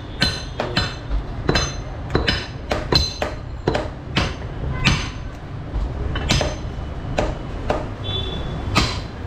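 Butchers' cleavers chopping beef on round wooden chopping blocks: repeated sharp chops, each with a short metallic ring. They come about two a second in the first half, then more sparsely.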